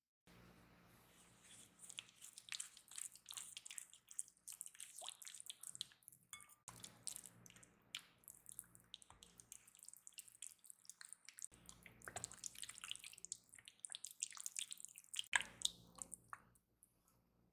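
Close-up wet, squishy kitchen food-preparation sounds: a dense run of small crackles and clicks, as ingredients are handled or mixed, in three short takes.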